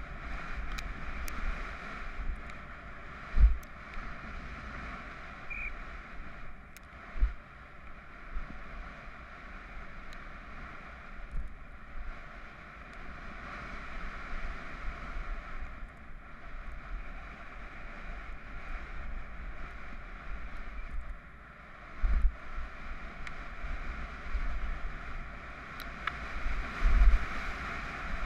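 Wind rush and rolling noise on a helmet-mounted GoPro HERO3 during a fast downhill mountain bike descent on a gravel track. A steady rush with low buffeting, broken by a few sharp thumps where the bike hits bumps.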